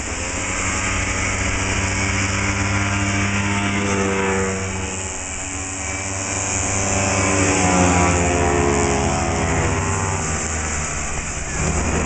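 Small vintage two-stroke snowmobile engines running at full throttle as several sleds race past. The engine buzz rises and falls in pitch as each machine goes by, loudest about two-thirds of the way through.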